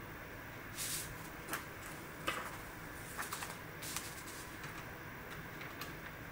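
A paper sheet sliding against plastic as it is pulled out and a fresh sheet slipped in, two short swishes about a second and four seconds in. Light clicks of LEGO plastic parts as the hinged frame is lifted and set back, the sharpest about two seconds in.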